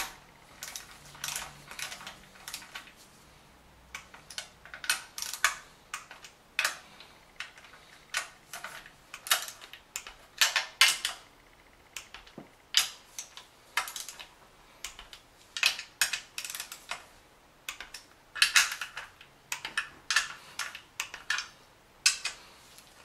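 Torque wrench ratcheting on M6 oil pan bolts being torqued to 10 N·m, in short runs of sharp clicks repeated every second or two.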